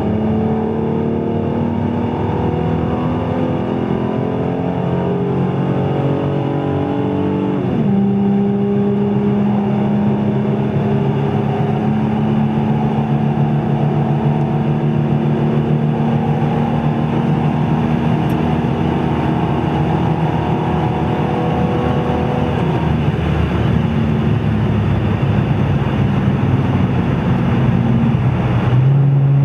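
2006 Ford Mustang's 4.0-litre V6 through a Blue Oval Industries aftermarket exhaust, pulling with rising revs. About eight seconds in the revs drop sharply at an upshift, and the engine then runs at nearly steady revs for the rest of the time.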